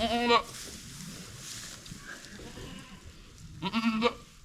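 A goat bleats twice, just after a kid has been born: a short quavering bleat at the start and another near the end.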